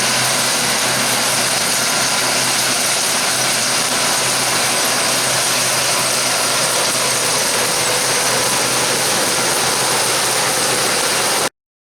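Harvest machinery running steadily: an even engine drone with a broad hiss over it, which cuts off suddenly near the end.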